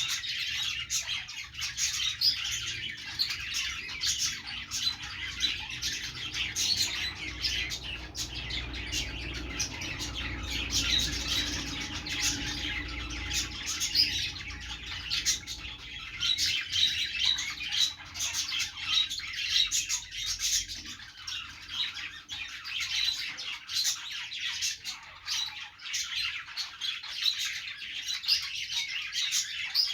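Several budgerigars chattering without a break: a dense stream of quick, high chirps and warbles.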